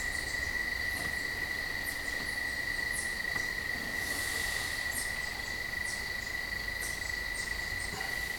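Steady, high-pitched insect trilling, like crickets, holding one even tone, with faint short high ticks scattered through it.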